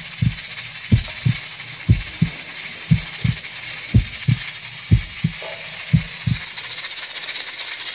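Pressure cooker's weighted steam valve rattling in double knocks about once a second over a steady hiss, the sign that the cooker is up to pressure.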